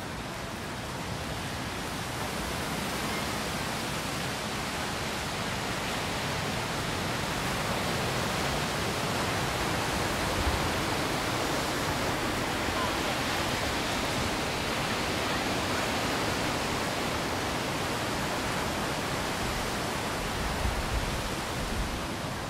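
Steady rushing outdoor noise with no clear rhythm or tone, rising a little in the first few seconds and then holding level, with some low rumbling near the end.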